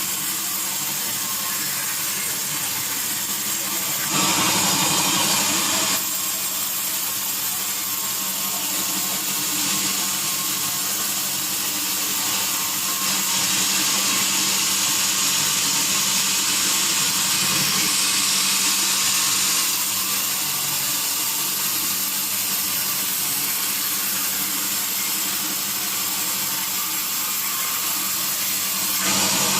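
Sawmill saw running steadily with a constant hum, getting louder for a few seconds near the start, for a longer stretch in the middle and again at the end as it cuts through teak wood.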